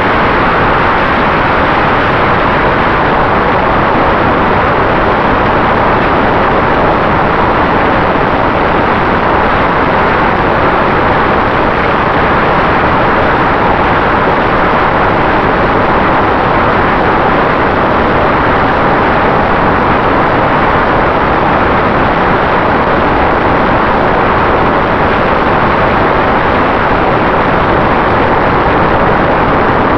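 Radio-controlled model airplane in flight, heard from a camera mounted on the plane: a loud, steady rush of propeller and wind noise with a faint steady tone underneath.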